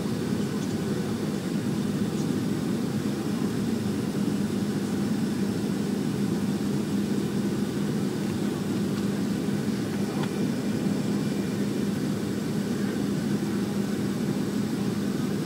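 Steady cabin drone of a Boeing 737-700 in flight, from its CFM56 jet engines and the airflow over the fuselage, with a low steady hum running through it.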